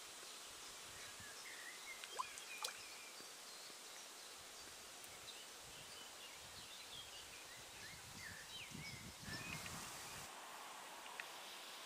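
Quiet outdoor ambience with small birds chirping at a distance in short, quick rising and falling notes. There are two sharp clicks a couple of seconds in and a brief rustle near the end.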